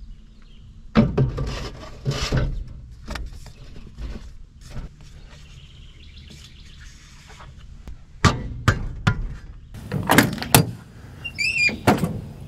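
Irregular knocks, thuds and short scrapes of a new air filter element and the sheet-metal air cleaner housing of a diesel semi truck being handled and fitted together by hand. A bird chirps near the end.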